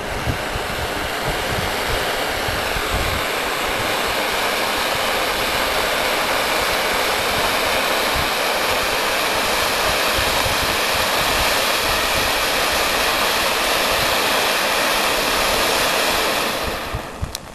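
Fountain firework (a "volcano") spraying sparks with a steady, even hiss, growing a little louder over the first few seconds and dying away shortly before the end as it burns out.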